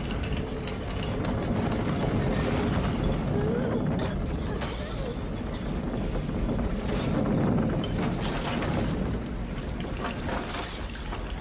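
A ground-shaking tremor: a deep, continuous rumble with things rattling and clattering, and several sharper crashes along the way.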